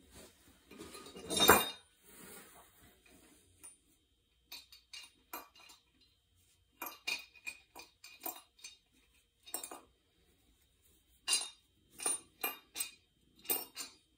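A shop rag wiping the mating surface of a Rotax engine's metal crankcase half in short, quick strokes, with light clinks of metal on the bench; one louder scuff about one and a half seconds in.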